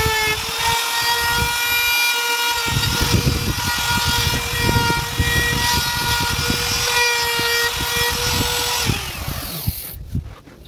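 Compact electric trim router running at full speed with a steady high whine while its bit cuts into the hardwood edge of a cutting board, with rough chattering cutting noise under the whine. About nine seconds in it is switched off and its pitch falls as the motor spins down.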